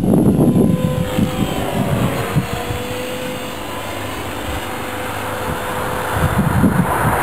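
Propeller aircraft engine droning with a steady tone, and wind buffeting the microphone at the start and again near the end.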